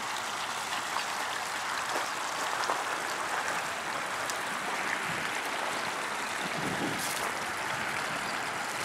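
Steady splashing and rushing of pond water as a hooked trout thrashes at the surface while being played on a fly rod.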